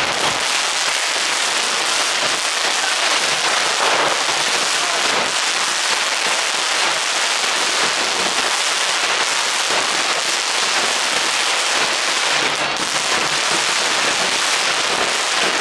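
A long string of Chinese New Year firecrackers hung on a tall pole going off in an unbroken, rapid crackle of small bangs.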